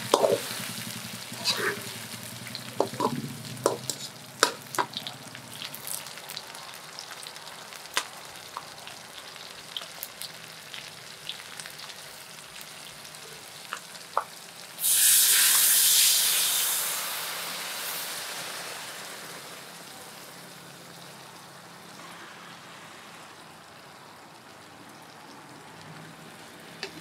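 Giant river prawns frying in a wok, with a metal spatula scraping and clinking against the pan. About fifteen seconds in, coconut milk poured into the hot wok sets off a loud, sudden sizzle that dies away over several seconds.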